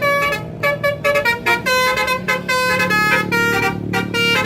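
Background music: a tune of short, horn-like notes at steady pitches, one after another.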